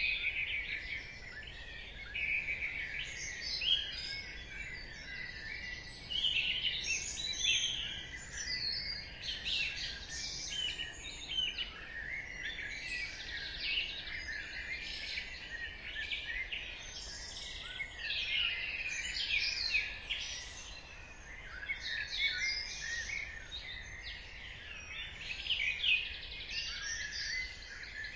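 Dawn chorus: many songbirds singing at once, a dense overlapping tangle of chirps, trills and warbles, over a faint low background hum.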